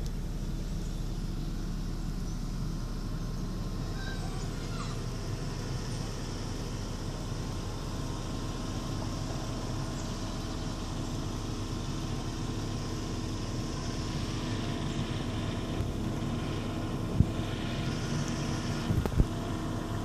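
Vehicle engine running steadily with a low, even hum while the vehicle sits or creeps through floodwater. A couple of sharp clicks sound near the end.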